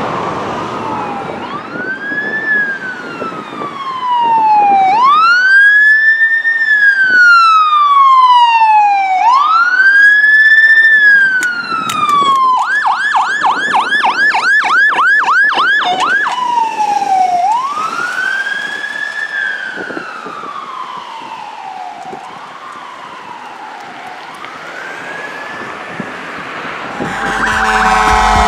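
Emergency vehicle electronic siren: a slow rising-and-falling wail, switched to a fast yelp for a few seconds midway, then back to the wail, fading away. Near the end a louder, different sound cuts in.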